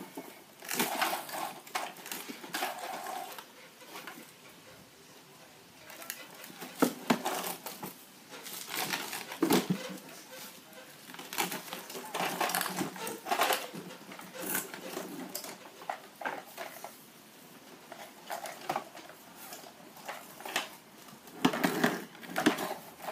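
Irregular clattering and scraping of plastic toy vehicles being handled and pushed about, in short bursts with quieter gaps between.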